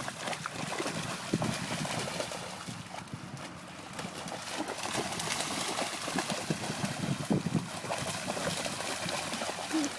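Footsteps and rustling while walking: an irregular run of steps and handling noise.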